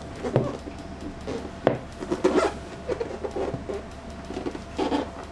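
Cardboard box handled and turned over by hand: soft rubbing and scraping of fingers on the box, with a few sharp taps.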